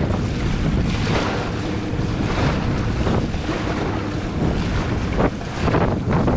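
Wind buffeting the microphone in irregular gusts over the wash of sea water, a constant low rumble.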